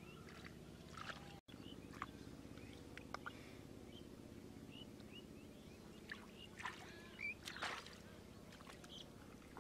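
Faint splashing and sloshing of muddy water as bare hands scoop and dig in a shallow pool, with a few short bird chirps over a low steady hum.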